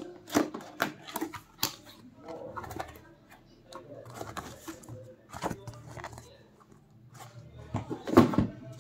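Cardboard box and paper manuals being handled: flaps and sheets rustling and crinkling, with many short sharp taps and clicks and one louder hit near the end.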